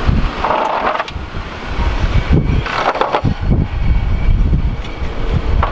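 Jeep Wrangler Rubicon driving slowly over a muddy dirt trail: engine running under the tyres' crunch and squelch through the mud, with uneven surges of rushing noise.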